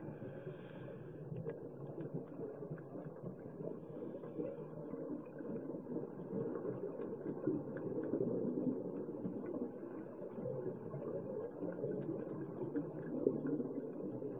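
Muffled underwater ambience picked up by a camera submerged with the divers: a steady low rush with scattered faint clicks.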